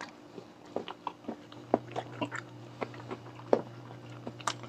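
Close-miked chewing of spicy balut (boiled fertilized duck egg with chili): irregular wet clicks and smacks of the mouth, over a steady low hum.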